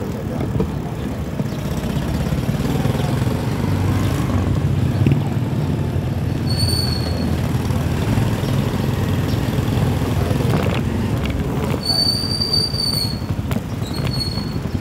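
Steady low rumble of riding noise and wind while cycling, cut three times by a high, thin squeal of the mountain bike's brakes: briefly about six and a half seconds in, for about a second at twelve seconds, and briefly again near the end.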